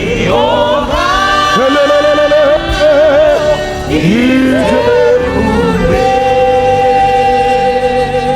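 Gospel worship singing with band accompaniment, sung in phrases, then a long held note from about six seconds in.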